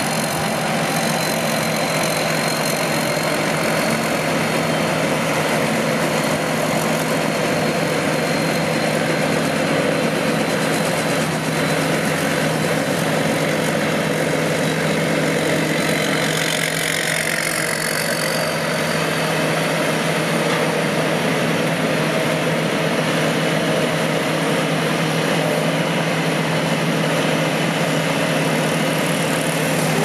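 Tracked rice combine harvester's diesel engine running steadily as the machine crawls along the road, a constant heavy hum with a thin high whine over it.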